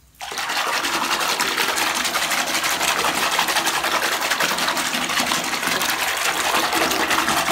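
Bathwater being churned hard to whip up foam from a bath bomb: a loud, steady rushing with a fast flutter that starts and stops abruptly.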